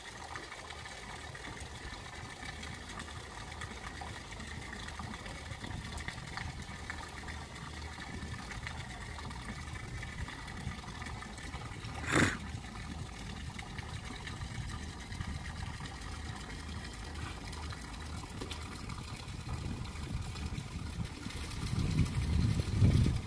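Water running steadily, with one sharp knock about twelve seconds in and a low rumble near the end.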